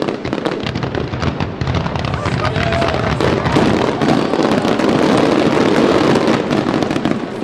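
A rapid, continuous barrage of aerial firework shells bursting in dense, overlapping cracks and reports, growing louder through the middle: the closing machine-gun-style volley of the display.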